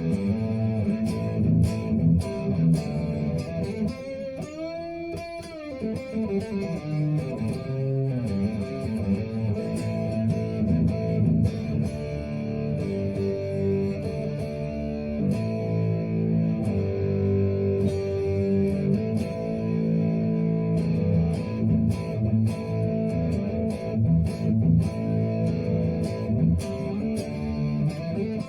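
Electric guitar, a Telecaster with Bare Knuckle Nomad pickups, played through a Positive Grid Spark 2 amp on a Marshall-style overdriven setting: sustained chords and riffs, with a note bent up and back down about four to six seconds in.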